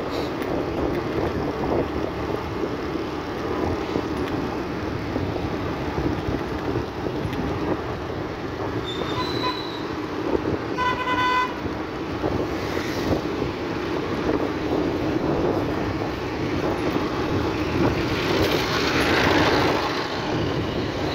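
Steady road, engine and wind noise from riding along a city street, with a vehicle horn sounding once for about a second, some eleven seconds in, just after a short high beep. The noise swells near the end.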